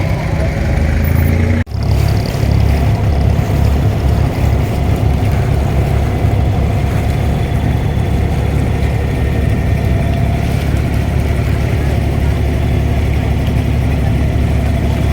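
An abra's inboard diesel engine running steadily at cruising speed, a deep low hum. It cuts out for a split second about two seconds in, then carries on unchanged.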